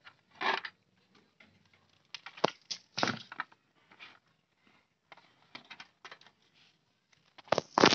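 Irregular clicks, knocks and short rustles of hands handling the wires and connectors at a small motorcycle battery, the loudest a few seconds apart.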